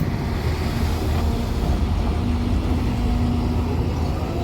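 Heavy diesel engines of an excavator and dump truck running steadily, a deep low rumble.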